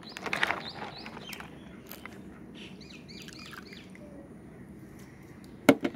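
Water splashing and dripping as a plastic toy animal is handled and lifted out of a basin of soapy water. A bird chirps a quick run of short notes in the middle, and a single sharp knock sounds near the end.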